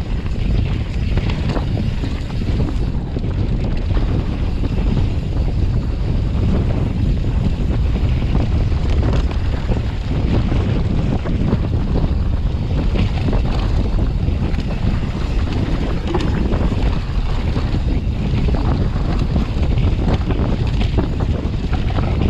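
Wind buffeting the microphone of a camera on a downhill mountain bike riding a bike-park trail, over a steady rumble of tyres on dirt and frequent rattles and clatter from the bike.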